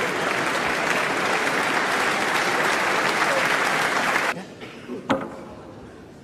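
Audience applauding in a dense, steady patter that cuts off abruptly a little after four seconds in, followed about a second later by a single sharp click.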